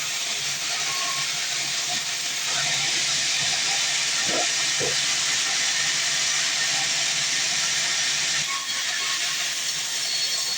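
Sawmill saw cutting through a fresh mahogany log, a steady high hiss. It gets louder about two and a half seconds in and eases off near the end.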